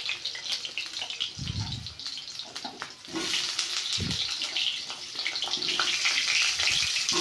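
Potato chunks frying in oil in an iron karahi: a steady sizzling hiss with small crackles. A couple of dull thuds come about a second and a half in and again at about four seconds.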